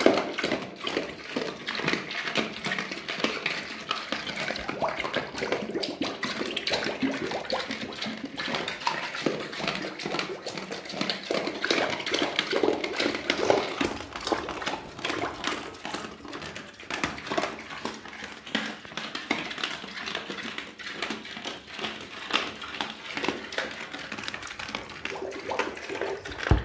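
Two pigs eating watery slop with vegetable pieces from a trough: a steady run of irregular wet slurps, chomps and splashes.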